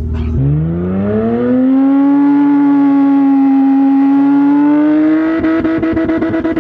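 Stripped Mitsubishi Eclipse's engine revving up hard under acceleration: the pitch climbs steeply about half a second in, then holds at high revs. It rises a little further with a rapid stutter near the end.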